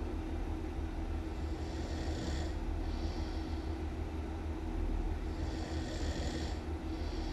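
A person snoring loudly in slow, regular breaths. Two full snore breaths come about two and six seconds in, each a breath in followed by a breath out, over a steady low hum.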